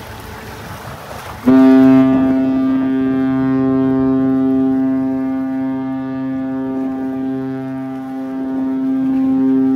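Large ship's horn sounding one long, steady blast that starts abruptly about a second and a half in and is still sounding at the end.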